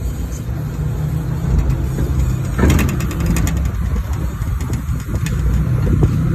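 Pickup truck driving slowly, its engine and road rumble heard from the open bed. About two and a half seconds in comes a short burst of clicking clatter.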